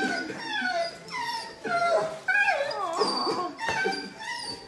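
A large dog whining and crying in a run of high-pitched cries that each slide downward in pitch, one after another. These are the excited whines of a dog greeting its returning owner.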